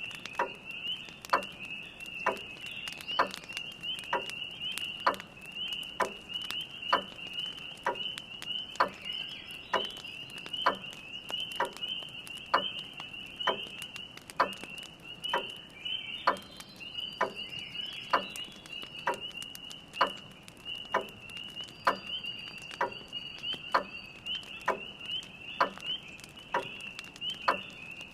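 Grandfather clock ticking about once a second over a steady high-pitched chorus of spring peepers, with a fire's light crackling underneath.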